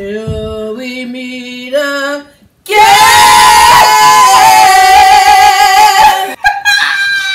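Women singing the end of a goodbye song together: a phrase that steps up in pitch, a short break, then a long, loud held high note, and a last note that falls away near the end.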